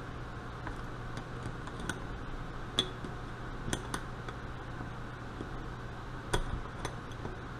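Scattered light metallic clicks and clinks of a screwdriver working the cover screws of a Carter mechanical fuel pump, tightened in a star pattern to give even pressure on the diaphragm cover, over a steady low hum.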